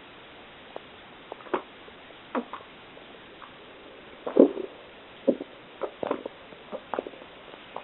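A person drinking a glass of milk in gulps: a series of short, irregular swallowing sounds, the loudest a little over four seconds in.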